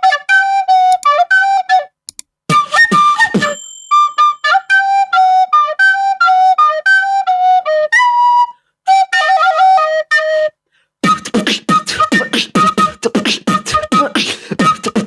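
Beatboxing: a melody of short, clean, flute-like notes with a few percussive hits, paused twice. From about eleven seconds in it turns into a fast, dense beatbox rhythm of clicks and hits with pitched notes woven through.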